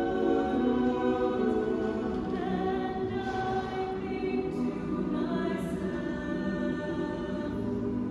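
Mixed choir of men's and women's voices singing a cappella, holding sustained chords.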